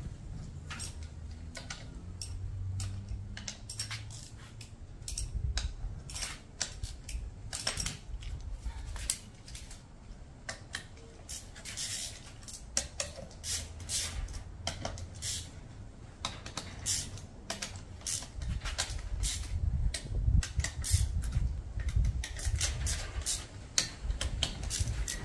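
Irregular small metallic clicks and clinks of hand tools and loose parts as the camshaft journal caps are taken off a cylinder head, coming in quick clusters in the middle and near the end.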